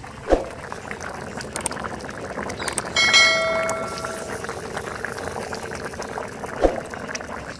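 Thick khichuri (rice, lentils and soybean chunks) bubbling at a rolling boil in a wok over a wood fire. Two brief knocks come shortly after the start and near the end. About three seconds in, a ringing bell-like chime sound effect plays for a second or so.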